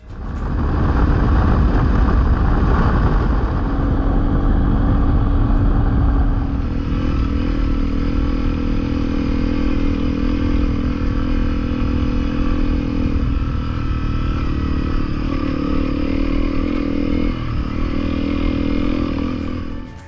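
Honda CRF250L dual-sport motorcycle's single-cylinder four-stroke engine running under way. For the first several seconds a loud rushing noise covers it. After that it holds a steady engine note that dips briefly twice.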